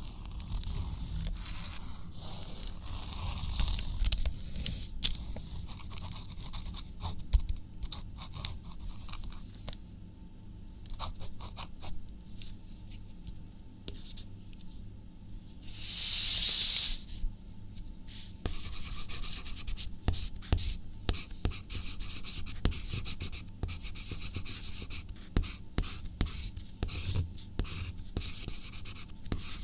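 Writing on paper by hand: a run of short scratchy strokes and taps, thinning out for a few seconds past the first third. A little past halfway comes one louder hissing rush lasting about a second.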